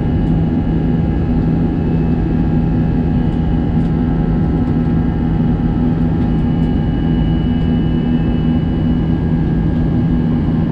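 Airbus A321-200 jet engines at climb power, heard from inside the cabin by the wing: a steady, loud rumble with a constant low hum.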